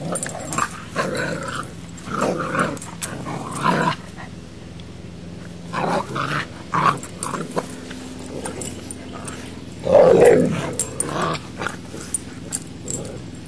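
A Boxer puppy and an English Mastiff play-fighting, growling in short irregular bursts with a brief lull partway through; the loudest growl comes about ten seconds in.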